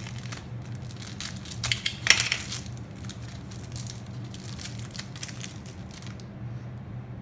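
Small clear plastic bag crinkling and crackling as it is opened and handled by hand, loudest about two seconds in and dying down about six seconds in.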